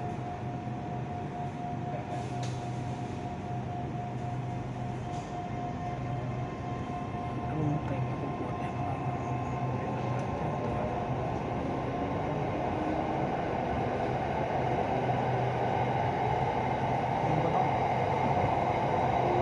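An electric commuter train pulls out of a station and accelerates, heard from inside the carriage. Its running noise builds steadily louder, and a faint motor whine rises in pitch in the second half.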